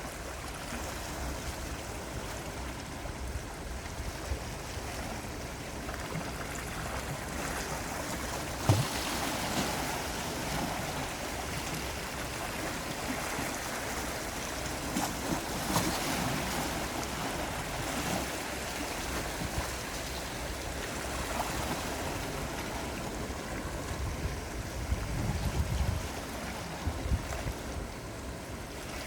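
Gentle sea waves washing and lapping, a continuous wash that swells a little a few times.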